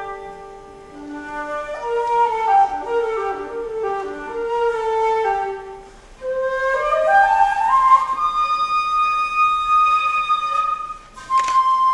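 Koto ensemble plucking a descending run of notes, then a shakuhachi taking over with sustained notes that climb step by step to a long held tone. The held note breaks off briefly near the end and comes back in.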